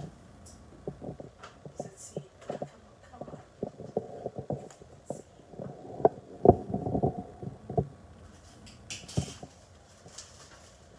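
Irregular series of light knocks and clicks, with a denser, louder cluster a little past the middle and a brief hiss near the end: handling noise as the recording phone and tripod are moved about in front of the oven door.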